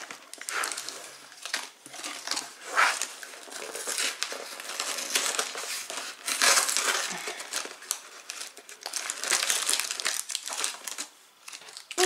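Crinkling of a foil-lined cardboard carton and the film-wrapped dishwasher tablets inside it as hands pull the box open and rummage through the packets, in irregular bursts, loudest about a third and about halfway through.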